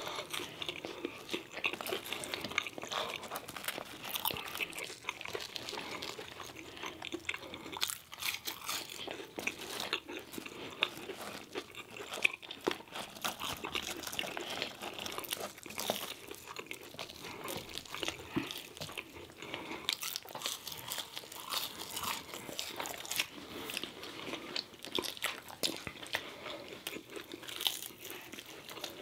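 Two people chewing and biting fried fast food, chicken nuggets and french fries, close to the microphone. The crunching and chewing is dense and irregular.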